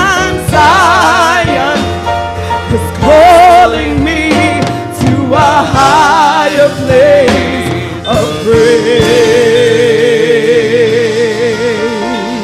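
A woman singing gospel with strong vibrato over instrumental accompaniment, in short sung phrases and then one long wavering held note in the last few seconds.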